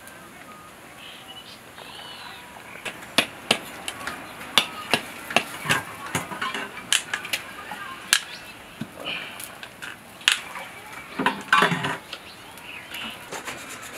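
Knife point tapping and scraping at the eye of a husked coconut to bore a hole through the shell: irregular sharp clicks and knocks that start about three seconds in, with a longer scrape near the end.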